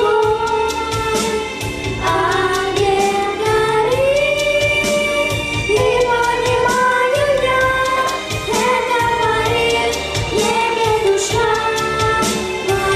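Music with a female voice singing a melody over instrumental accompaniment.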